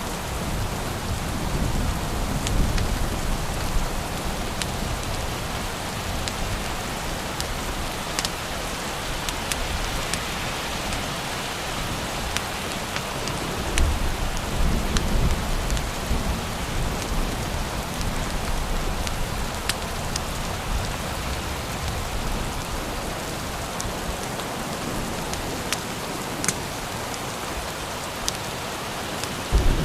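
Steady heavy rain, with scattered sharp clicks through it. Low rolls of distant thunder come near the start and again about halfway through.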